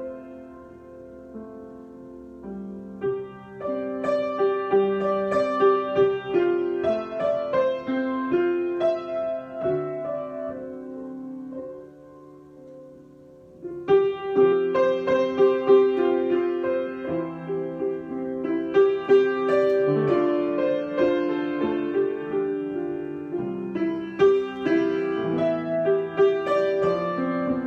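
Solo piano improvisation. It opens softly and builds to fuller, busier playing, then dies away to a quiet held chord about twelve seconds in. It comes back in loudly about two seconds later and keeps going.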